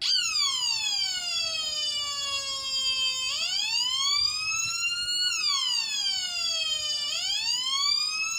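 Homemade siren built from two 555 timer chips, sounding through a small 8-ohm speaker: a buzzy electronic tone that wails slowly, gliding down in pitch and back up about every four seconds.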